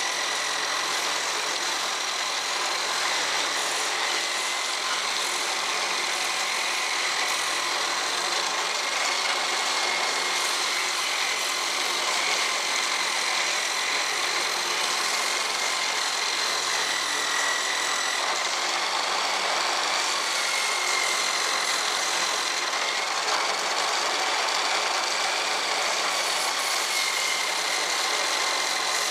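Electric drill running steadily at high speed, driving a homemade belt sander: a cut-down wide sanding belt on two wooden pulleys, with the belt sanding wood. The high, steady whine drifts slightly in pitch over a rushing noise, and is noisy.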